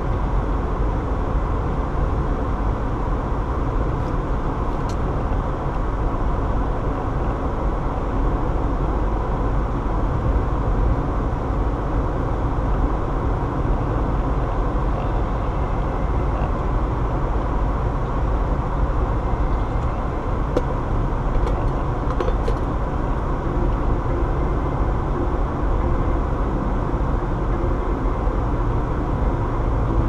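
Steady road noise of a car driving at highway speed, heard from inside the cabin as an even low rumble.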